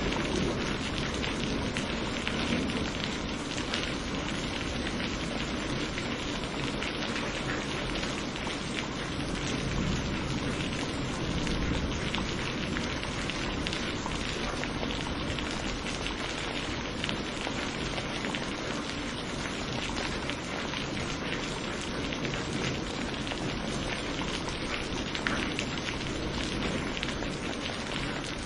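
Steady rain pouring down on a surface, an even hiss of many drops. A low thunder roll fades out in the first couple of seconds.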